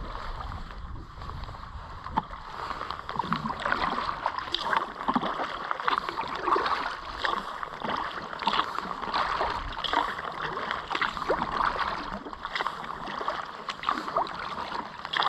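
Water splashing and trickling around kayaks and their paddles on a river, a run of many small, quick splashes that gets busier about two seconds in.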